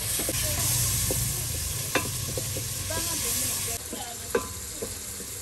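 Chopped tomatoes sizzling as they fry in an aluminium pot over a wood fire, while a wooden spoon stirs them and knocks against the pot several times, sharpest about two seconds in and again after four seconds.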